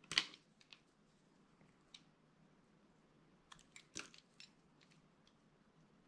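Small blade cutting into a hard, dry bar of soap. There is a sharp crunch right at the start, a few faint clicks, then a cluster of crackly crunches about four seconds in.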